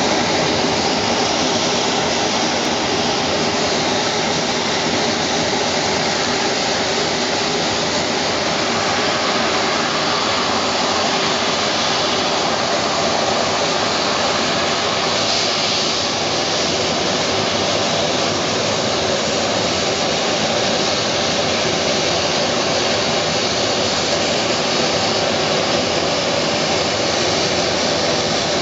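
Turboprop aircraft engines running on an airport ramp as planes taxi, a steady loud rushing whine.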